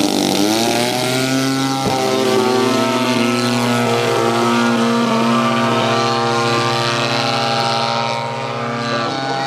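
Two Peak Models Sbach 30cc RC aerobatic planes' DLE-30 single-cylinder two-stroke petrol engines opening up for takeoff, the pitch rising in the first second, then running steadily at high power as the planes climb away.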